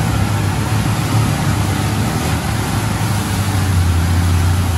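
Jeep engine running steadily as the vehicle drives, heard from inside the cab, with a strong low drone throughout.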